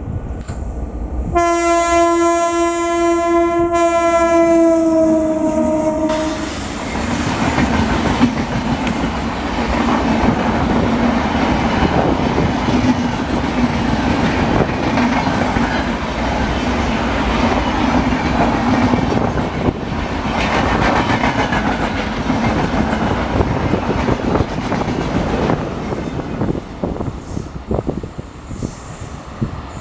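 An Indian Railways WAP-4 electric locomotive sounds one horn blast of about five seconds, its pitch dipping slightly at the end as it passes. Then comes the loud, steady rumble and rattle of a long rake of passenger coaches running by at speed, easing off near the end as the last coach recedes.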